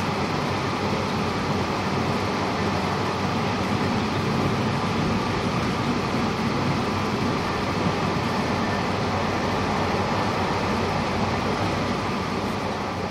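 Steady running noise of a JR Shikoku 8600 series electric train, heard inside the passenger car: the wheels on the rails and a low rumble.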